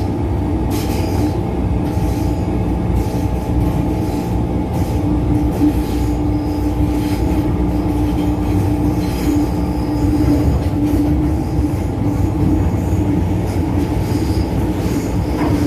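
MTR Tsuen Wan Line M-Train running at speed, heard from inside the passenger car. A steady whine sits over a continuous rumble of wheels on rails.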